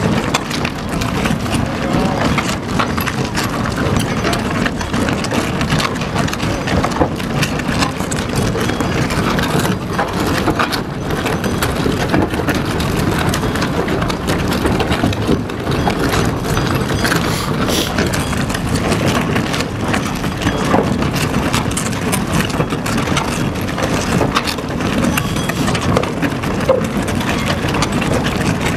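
Herrenknecht tunnel boring machine grinding through the rock just behind the portal wall: a steady low rumble with irregular crackling, the sign that the cutter head is about to break through.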